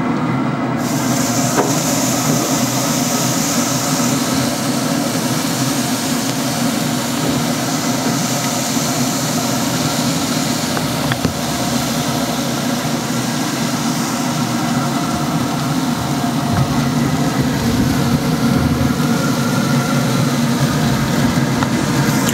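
A steady mechanical drone with a low rumble, unchanging, with a hiss that comes in about a second in.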